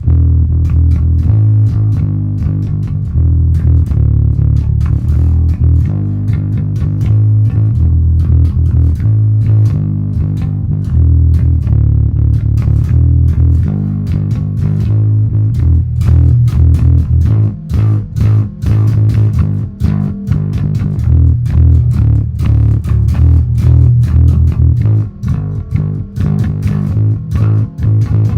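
Five-string Warwick Vampyre SN-5 electric bass played through a Neural DSP Quad Cortex on its Bass Super Valve amp preset: a loud run of low, sustained notes, turning choppier with short breaks about halfway through.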